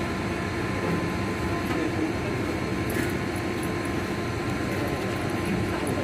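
Steady mechanical drone with a constant hum through it, from machinery running nearby, and a faint knock about three seconds in.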